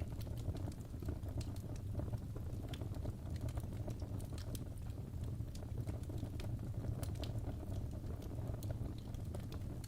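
Fire burning in a fireplace: a steady low rumble with frequent small, sharp crackles and pops.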